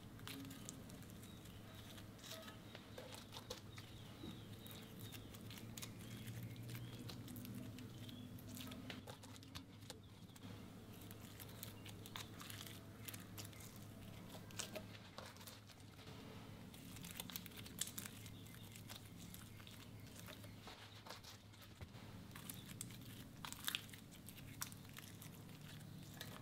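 Clear slime being stretched and pressed by hands: faint, scattered sticky crackles and small pops, over a steady low hum.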